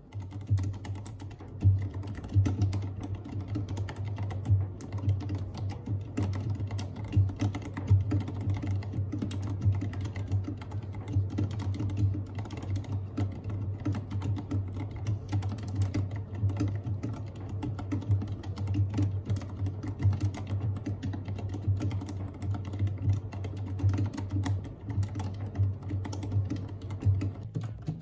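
Continuous, fairly fast typing on an RK84 mechanical keyboard fitted with matcha-green keycaps: a dense, unbroken stream of key clacks.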